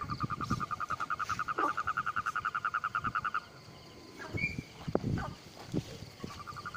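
Electrofishing shocker giving a pulsed, high-pitched buzz, about a dozen pulses a second at one steady pitch. It cuts off suddenly about three and a half seconds in and starts again near the end, with the shocker pole knocking and splashing in the water underneath.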